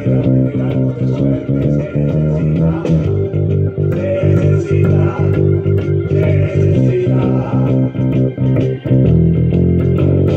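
Four-string electric bass guitar played with the fingers, running a continuous line of low notes that change every fraction of a second, with a full band recording underneath.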